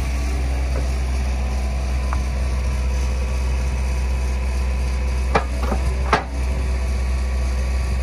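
Hyundai 160 excavator running with a steady low drone, its magnet hanging still over a bin of scrap metal. Two sharp metallic clanks come about five and six seconds in.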